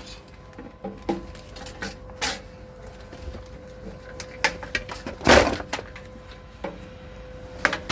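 Scrap being handled and rummaged through: scattered rustles and knocks, the loudest a short clatter about five seconds in, over a faint steady hum.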